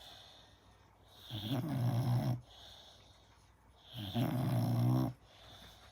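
A five-month-old American Staffordshire terrier puppy snoring in its sleep: two loud, rasping snores about three seconds apart, each lasting about a second, with quiet breathing between them.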